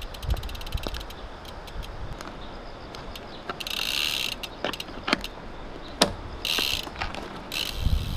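Road bike's rear freehub ratchet clicking rapidly as the wheel turns without pedalling, coming in several short runs that thicken into a dense buzz, with a few sharp separate clicks.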